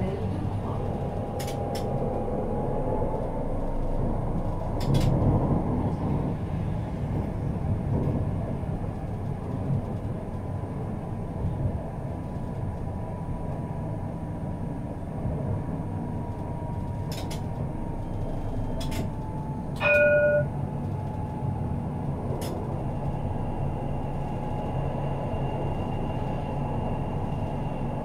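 Tram running along its track, heard from on board: a steady rumble of wheels on rail with a thin electric whine that rises and falls in pitch as it changes speed, and a few light clicks. About twenty seconds in, a short bell-like chime sounds once, the loudest moment.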